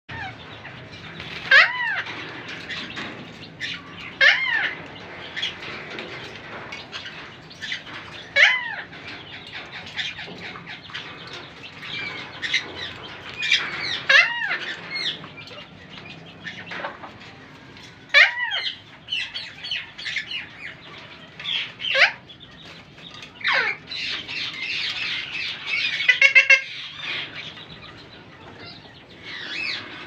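Indian ringneck parakeet giving loud, sharp calls, one every few seconds, then a stretch of faster chattering calls near the end.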